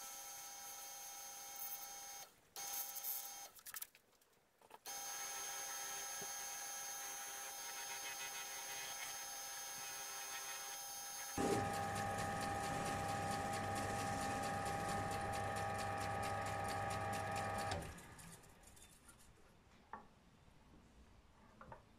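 Wood lathe motor running with a steady whine while a small turned wooden piece is buffed against its spinning polishing wheel. The sound cuts out briefly twice near the start, grows louder with a deeper hum about halfway through, then stops a few seconds before the end, leaving only faint handling clicks.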